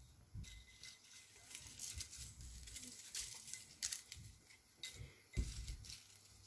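Faint scattered ticks and rustles of whole cumin seeds and dried bay leaves being brushed off a plate and dropping into a pressure cooker onto meat and spices, with a soft bump about five seconds in.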